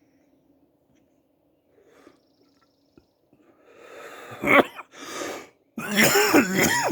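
A man coughing: after a few quiet seconds, a wheezy breath builds about three and a half seconds in, followed by a sharp cough and a run of harsh, voiced coughs near the end.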